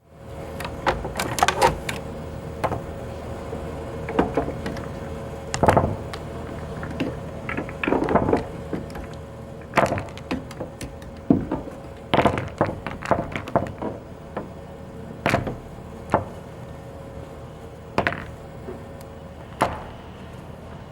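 Pool balls rolling on a pool table, with a low rolling rumble under irregular sharp clicks as the balls knock against each other, some in quick clusters and some alone.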